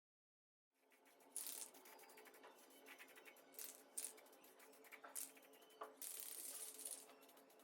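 Faint scraping and rattling handling noises, several short ones and a longer scrape about six seconds in, over a steady low hum; the sound cuts in abruptly from dead silence just under a second in.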